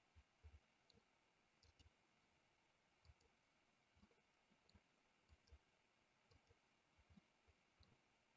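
Near silence with faint, irregular clicks from a computer mouse and keyboard.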